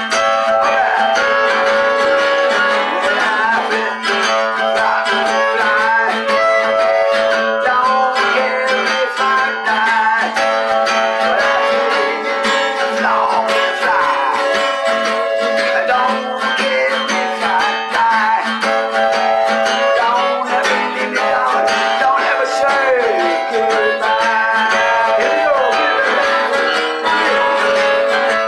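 Blues harmonica playing over a strummed acoustic guitar, the harmonica holding and bending notes in a continuous instrumental passage.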